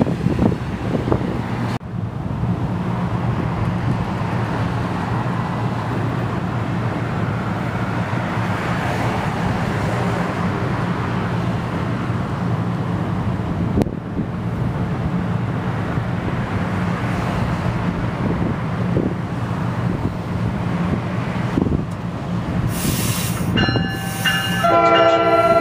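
Train running at a station, a steady low hum and rumble with no pause. Near the end a short hiss, then a sustained tone of several notes at once.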